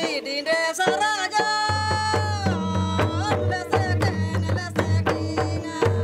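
Tribal folk music: hand drums with bamboo-slatted bodies beating a quick, steady rhythm under a singing voice that holds long notes.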